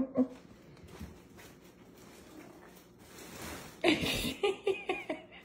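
A person chuckling in a run of short laughs about four seconds in, after a quiet stretch with a brief soft rustle.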